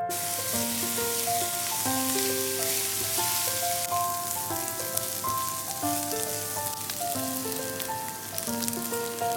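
Chicken liver sizzling as it fries in a pan: a steady hiss with small crackles that cuts in and out abruptly, over piano music.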